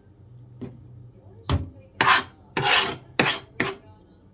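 Kitchen knife blade scraping across a cutting board, about five quick scrapes in the second half, as loose sculpin roe is scraped off its membrane and gathered.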